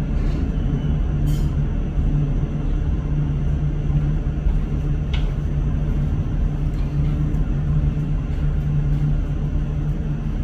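Steady low mechanical hum and rumble, with a brief high chirp about five seconds in.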